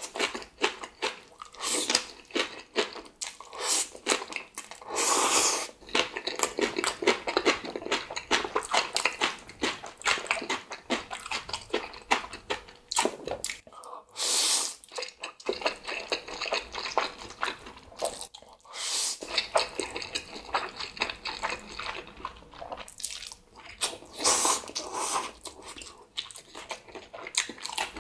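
Close-up mouth sounds of eating spicy green onion kimchi and black bean instant noodles: steady chewing with wet crunches, broken by a few louder slurps.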